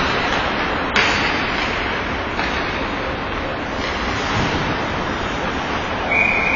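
Ice hockey rink noise: a steady rush of skates on ice and arena din, with a sharp crack about a second in, like a puck or stick striking. A steady high tone begins near the end.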